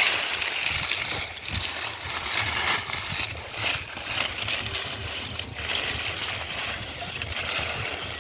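Shallow muddy water sloshing and splashing irregularly as someone works through it by hand, catching fish.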